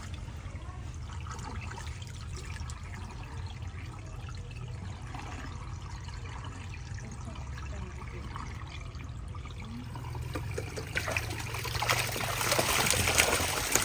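Water trickling steadily, then a louder rush of pouring water starting about ten seconds in.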